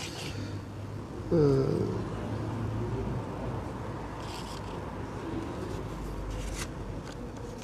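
Paper slips crinkling and rustling in short bursts as they are unfolded and handled, a few times. Under them runs a low rumble, and about a second and a half in comes a short falling tone, the loudest sound here.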